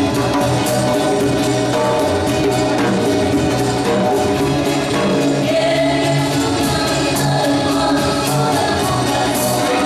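Live band playing a song on electric guitar, keyboard, small plucked lutes and a drum kit, with several voices singing together over it.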